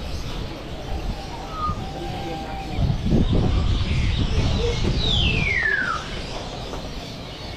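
Caged songbirds calling, with short whistles early on and one long whistle sliding down in pitch about five seconds in. Under them are indistinct voices and a low rumble that is loudest in the middle.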